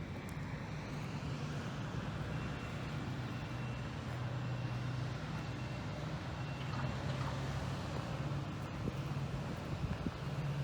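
Motor vehicle running: a steady low engine hum over even road and traffic noise, with a faint high tone coming and going several times.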